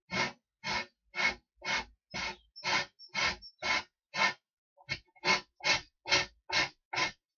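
Steady back-and-forth scraping strokes of a hand tool working material, about two strokes a second, some fifteen in all, with a brief uneven stroke a little past the middle.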